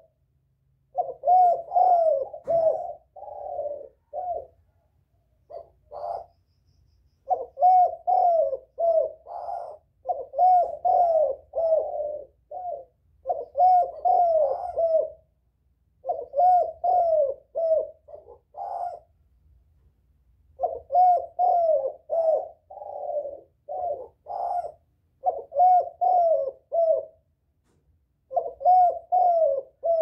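Spotted dove cooing: about ten phrases, each a run of low, falling coos, with short pauses between them.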